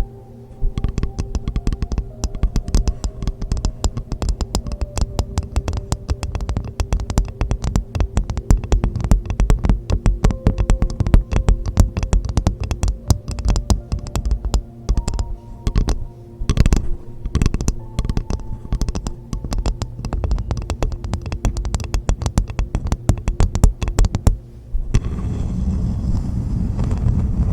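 Rapid, dense tapping on a hollow coconut shell, the shell ringing with faint short tones. The tapping stops about 24 seconds in and gives way to a steady low rushing noise.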